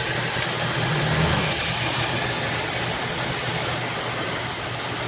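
SnugLuv 160,000 RPM high-speed hair dryer running on a high speed setting: a steady rush of air over a low motor hum.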